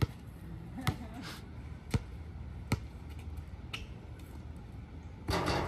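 Basketball being dribbled on a hard outdoor court: sharp single bounces about once a second, followed by a short burst of noise near the end.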